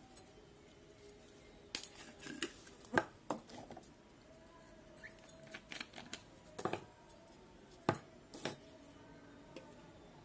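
Hard plastic parts of a baby feeding bottle and a stacking milk-powder container being twisted open and handled: scattered clicks and knocks, a few louder ones about three and eight seconds in as pieces knock against each other and the tabletop.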